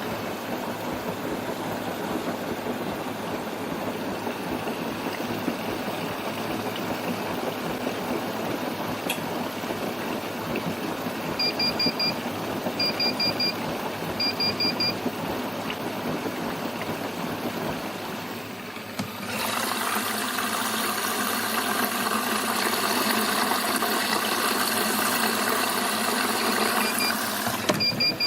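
Bosch Serie6 washer-dryer running with a steady rushing of water, broken by three quick runs of rapid high-pitched beeps about eleven to fifteen seconds in: the machine's unwanted repeated beeping. About nineteen seconds in a louder rushing sound starts, and near the end the beeping begins again.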